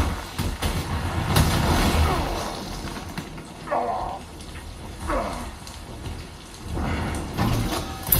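Movie soundtrack effects played back over loudspeakers: a steady rain-like hiss with low rumbles and a few sharp hits, and two brief wavering tones around the middle.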